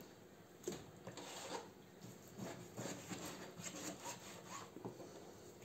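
Large kitchen knife cutting through raw beef tripe on a plastic cutting board: faint, irregular short strokes of the blade scraping and tapping on the board.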